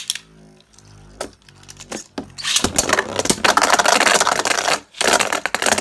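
Two Beyblade Burst tops spinning in a plastic Beyblade Burst stadium. At first there is a low steady hum with a few clicks. From about two and a half seconds in comes a long stretch of rapid rattling as the tops clash and scrape, and a shorter burst of clashing follows near the end.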